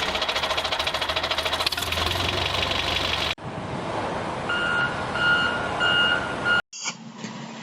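A diesel engine running with a rapid, even knock. After a cut about three seconds in, a reversing beeper sounds a repeated beep over low engine noise.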